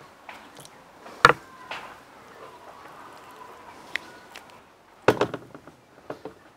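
Handling knocks while burger patties are shaped and laid out: one sharp knock about a second in, a couple of lighter taps, then a quick cluster of clatters about five seconds in, from a china plate, wooden cutting board and wire grill basket being handled on a table.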